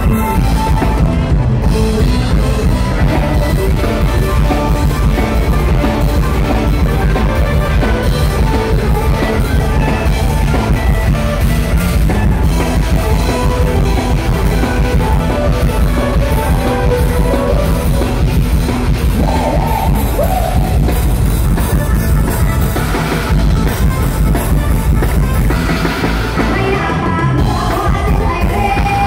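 Live band music played loud over a PA, with a drum kit and a singer.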